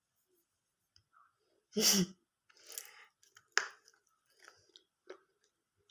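Water-soaked slate pencil pieces being bitten and chewed: a few soft, scattered crunches and mouth clicks. About two seconds in there is a short, loud vocal sound.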